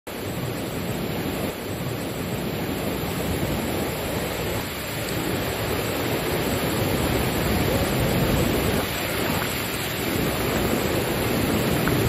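Steady rush of fast-flowing water from a swollen stream, heavy in the low end.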